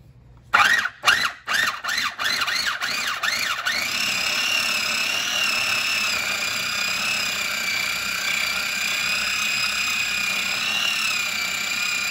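Small electric food processor blending butter with garlic and herbs: pulsed several times in quick short bursts, each rising in pitch, then run continuously with a steady motor whine.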